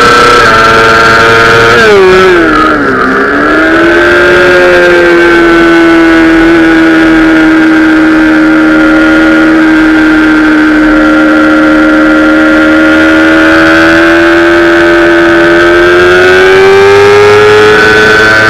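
Honda CBR600RR inline-four engine running hard, heard close up from behind the fairing. About two seconds in the pitch falls sharply as the bike slows from the straight into a corner. It then holds a steady lower note through the long bend and climbs again near the end as the bike accelerates.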